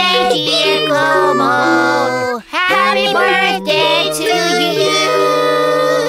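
A children's song: a high, child-like voice singing a melody over an instrumental backing, with a brief break about two and a half seconds in.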